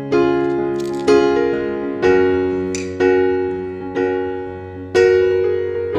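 Background piano music: chords struck about once a second, each fading until the next.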